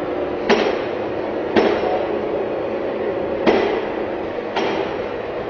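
A workshop test bench with a rifle strapped to its metal table runs with a steady hum and bangs with four sharp metallic knocks, spaced one to two seconds apart.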